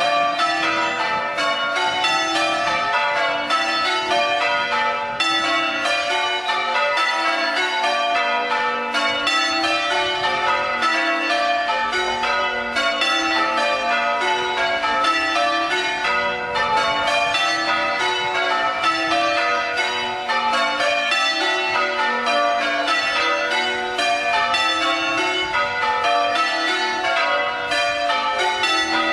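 Church tower bells in full-circle change ringing, rung as part of a quarter peal: a continuous, evenly paced stream of bell strokes sounding in constantly shifting order.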